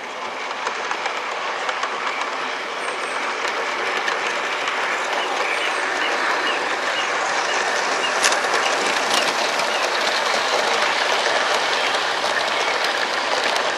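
Model train running on a garden railway track, a steady rumble of wheels on rail that grows louder over the first few seconds as it approaches, then holds.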